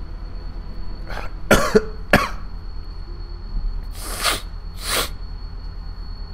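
A man coughing several times in short bursts: three quick coughs about one and a half to two seconds in, then two more near four and five seconds. A steady low hum runs underneath.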